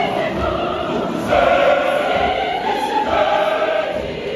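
Large church choir of men and women singing held chords together, swelling louder just over a second in.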